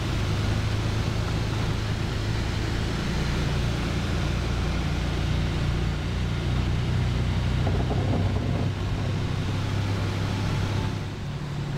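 A motor running steadily: a low, even hum under a broad rush.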